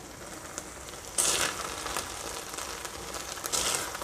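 Beef pulao rice sizzling in a pan now that its cooking water has dried off, with a spoon stirring through it: two louder scraping bursts, about a second in and near the end.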